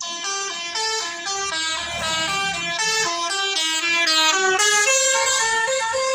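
Tour bus 'basuri' musical horn playing a quick tune, short pitched notes stepping up and down one after another.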